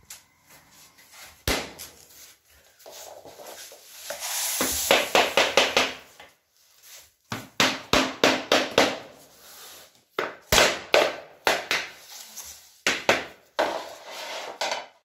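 Hammer knocking on the edge of an 8 mm laminate floor plank through a wooden offcut held against it, in several quick runs of sharp knocks. This drives the plank's tongue-and-groove click-lock joint home, closing the gap.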